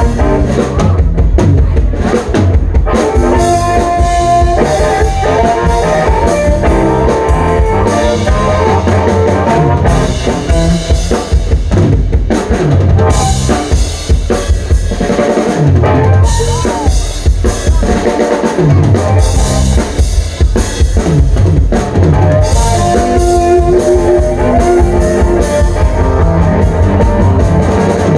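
Live blues band playing an instrumental solo section: a drum kit and bass keeping a steady beat under a lead instrument playing held, bending notes.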